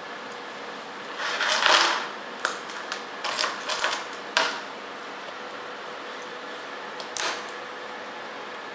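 Patch cords being handled on an electronics trainer board. A rustle of wires about a second in is followed by several sharp clicks of banana plugs being pushed into sockets, and one more click near the end.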